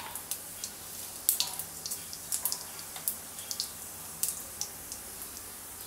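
Cumin seeds crackling in hot oil in an aluminium kadhai: irregular sharp pops and ticks over a steady sizzling hiss.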